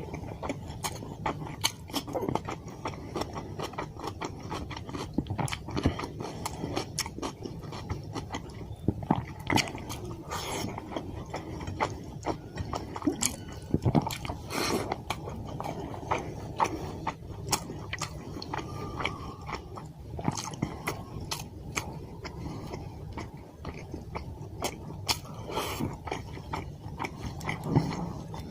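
A person eating fish curry with white rice close to the microphone, chewing and biting mouthfuls, with frequent irregular sharp clicks throughout.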